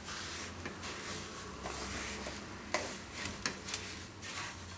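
Spatula stirring roasted white sesame seeds into softened dates in a non-stick kadhai: a dry rustle of seeds with irregular scrapes and taps of the spatula against the pan.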